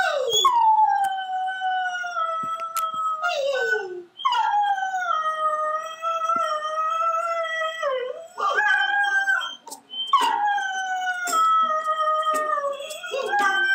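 Greyhound howling played back through a laptop speaker: a run of long howls, each starting high and sliding down to a held lower note, with short breaks between them.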